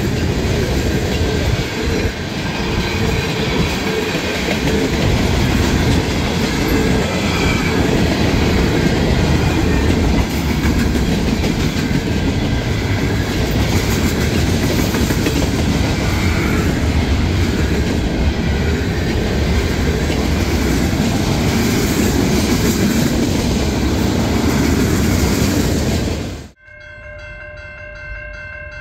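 Freight train rolling past at a grade crossing: a steady rumble with the clatter of steel wheels over rail joints as tank cars and gondolas go by. Near the end it cuts off suddenly, and quieter steady ringing tones follow while the crossing gate arm comes down.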